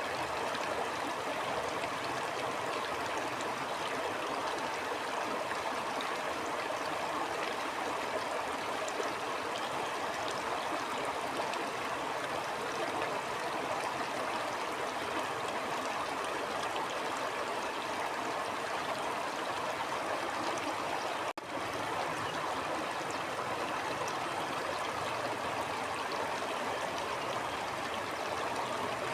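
Stream water flowing steadily, an even continuous rush. The sound cuts out for an instant about three quarters of the way through.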